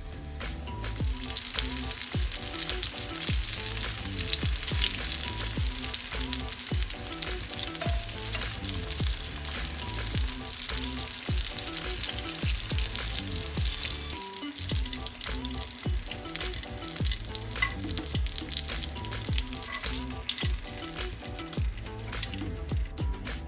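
Breaded croquettes deep-frying in hot oil: a dense, steady sizzle with many small crackles and pops, easing off near the end.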